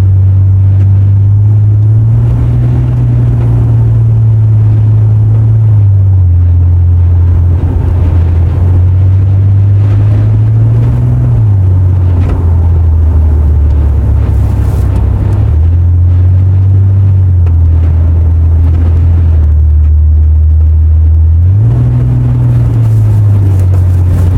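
Loud low drone inside a moving truck's cab during a high-wind storm, from engine, road and wind noise. The pitch steps up and down several times as the truck changes speed.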